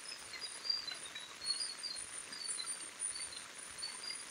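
Monsoon rain falling steadily on foliage and a wet road, with a thin, steady high insect drone and short bird chirps over it.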